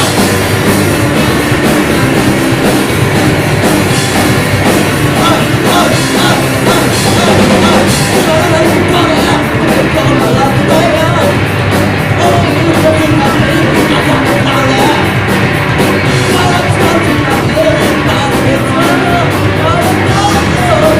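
Rock band playing live and loud, with a singer over drums and amplified instruments; the cymbal beat becomes more prominent about a third of the way in.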